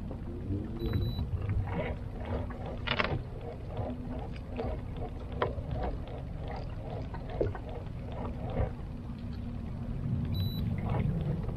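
Fishing-boat background: a steady low rumble with a faint steady hum, and scattered light clicks and knocks of tackle and handling on the boat.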